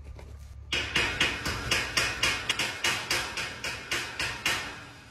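Steel chipping hammer striking a fresh stick weld on a steel pipe frame to knock off the slag. It makes a quick run of sharp metallic taps, about four a second, starting under a second in and stopping shortly before the end.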